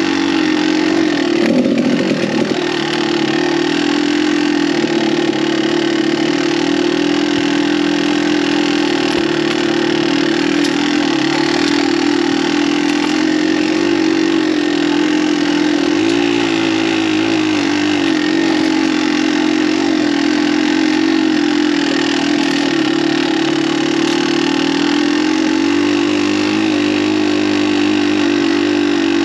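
Kawasaki KDX200's two-stroke single-cylinder engine running on the move at fairly steady revs, its pitch wavering with the throttle. The revs dip and climb again about two seconds in.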